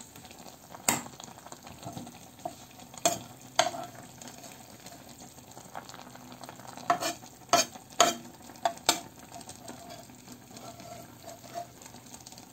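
Metal spatula scraping and tapping in a frying pan of browned onion bits, about seven short sharp strokes, over a faint steady sizzle.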